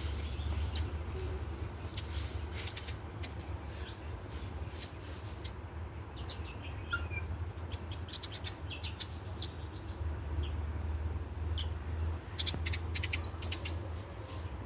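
Birds chirping: many short, high chirps in irregular clusters, thickest about halfway through and again near the end, over a steady low hum.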